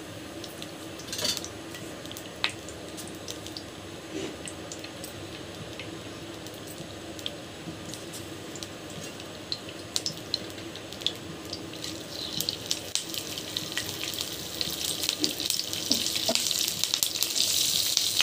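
Cumin seeds heating in oil in a nonstick frying pan, giving scattered small crackles and pops over a steady low hum. From about two-thirds through, a sizzling hiss builds and is loudest near the end, as chopped onions go into the hot oil.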